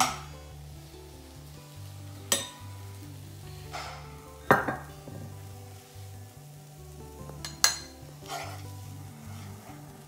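A utensil clinking and scraping against small individual baking dishes as duck meat is spooned into them, with about five sharp clinks, the loudest about midway. Background music plays underneath.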